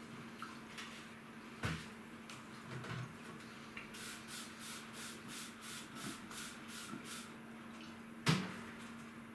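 A household trigger spray bottle of cleaner squirted over and over, about three quick sprays a second for some three seconds. There is a sharp knock a little over a second and a half in and a louder one near the end.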